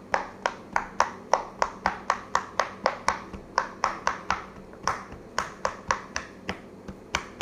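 Silicone pop-it fidget toy bubbles being pressed one after another: a steady run of small pops, about three or four a second.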